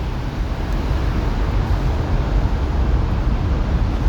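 A steady low rumble of background noise with no distinct events: the ambience of a busy transit station, where traffic, train rumble and wind cannot be told apart.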